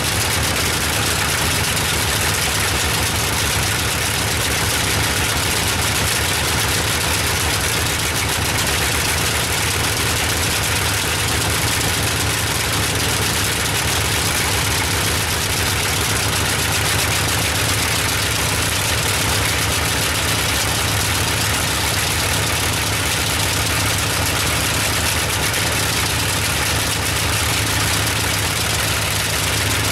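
Bristol Hercules fourteen-cylinder, two-row sleeve-valve radial engine running steadily on its test stand, turning its propeller.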